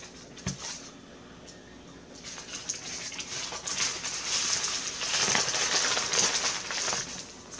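A paper sandwich wrapper crinkling and rustling as it is handled, a dense crackle from about two seconds in that fades near the end. A soft thump comes about half a second in.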